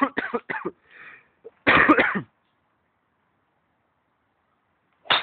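A person's voice in a few short, loud, rough bursts over the first two seconds, then dead silence, then one brief sharp burst at the very end.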